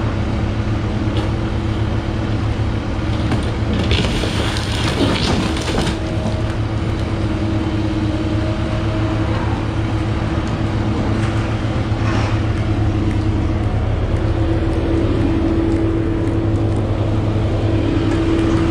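Steady engine drone of a scrap-yard material handler working its grapple, with a short noisy rush about four to six seconds in.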